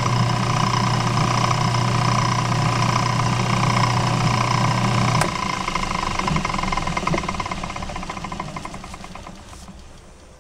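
Craftsman 109 bench lathe and its electric drive motor running steadily at low speed. About five seconds in there is a click, the motor hum cuts off, and the lathe coasts down with a slowing rhythmic ticking that fades away.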